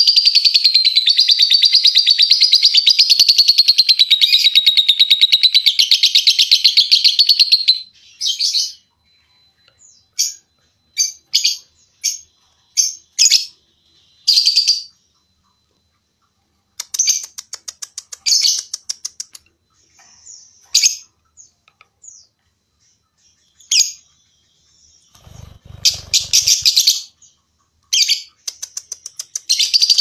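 Caged lovebird doing its long 'ngekek' chatter: a rapid, shrill, unbroken trill for about eight seconds, then shorter bursts of chatter with silent gaps, and a long trill starting again at the end. A brief low bump sounds under the chatter a few seconds before the end.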